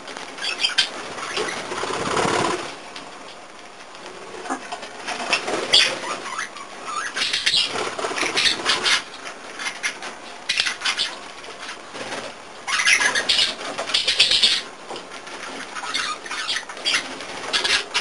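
Budgerigar pecking and scraping its beak at a gritty floor, heard as bursts of rapid scratchy clicks.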